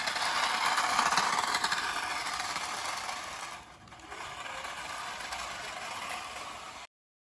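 Small electric motor of a remote-control toy car whirring, with its plastic wheels rattling over paving tiles; the noise dips briefly a little past halfway and cuts off abruptly near the end.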